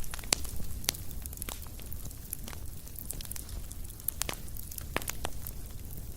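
Wood fire crackling, with irregular sharp pops and snaps over a low, steady rumble.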